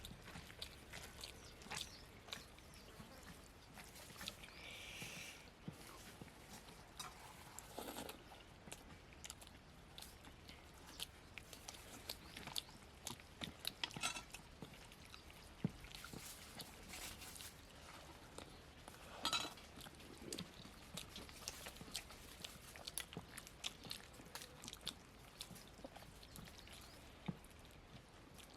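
Close-up eating sounds of poori and mutton curry: chewing, lip-smacking and biting, with many short irregular clicks and smacks.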